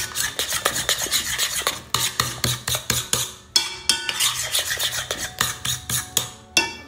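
Metal spoon stirring and scraping a thick cheese-and-flour batter in a mixing bowl, in quick repeated strokes. The strokes ease off briefly about three and a half seconds in and stop near the end.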